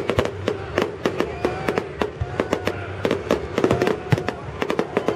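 Fireworks salute: a rapid, irregular string of sharp bangs, several a second, one after another.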